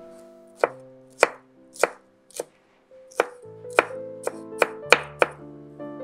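Chef's knife chopping red bell pepper on a wooden cutting board: about ten sharp knife strikes on the board, spaced out at first, then coming quicker in the second half.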